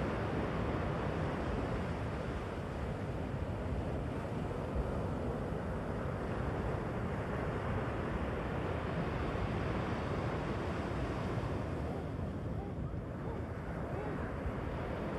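Ocean surf: small waves breaking and washing up the sand in a steady rush of water noise, the hiss thinning briefly about twelve seconds in.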